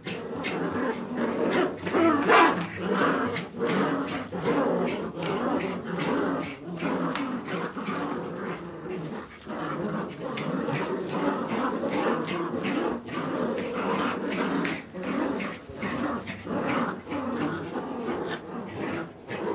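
A litter of Jagdterrier puppies growling and whining at one another as they play-fight, a continuous jumble of small voices with scuffling. A louder, higher cry stands out about two seconds in.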